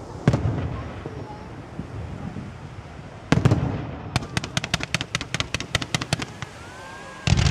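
Fireworks display going off: a sharp bang just after the start, a double bang about three seconds in, then a quick string of pops for about two seconds, and another loud bang near the end.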